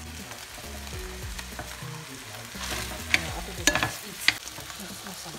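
Minced beef sizzling in a pot as it cooks, with a few sharp clicks about three to four seconds in.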